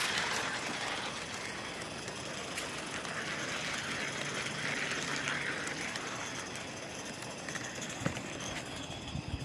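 Live steam model Forney locomotive running, its steam hissing and swelling slowly up and down, with a few sharp clicks near the end.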